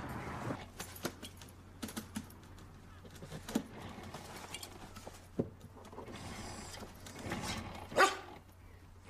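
A dog gives a single short bark about eight seconds in, the loudest sound here, among scattered small knocks and clicks.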